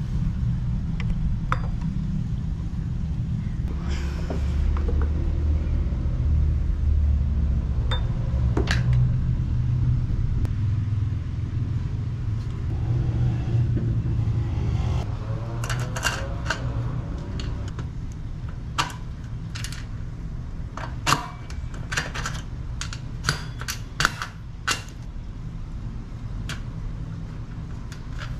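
Sharp metallic clinks and knocks of tools and parts as a motorcycle's rear alloy wheel and its hub bushes are fitted, over a steady low rumble. The knocks come mostly in the second half.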